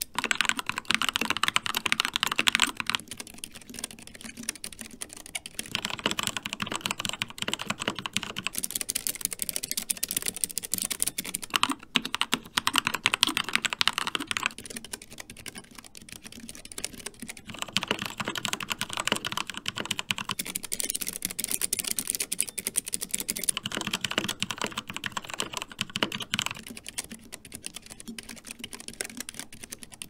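Fast touch-typing on a Keychron K3 low-profile keyboard, first with clicky Keychron Optical Blue switches and then with linear Keychron Optical Red switches: a dense, continuous clatter of keystrokes. The clatter grows brighter and quieter in turn every few seconds.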